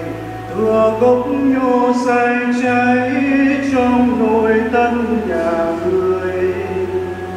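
A voice sings a slow, chant-like melody over sustained low accompaniment notes: a sung responsorial psalm.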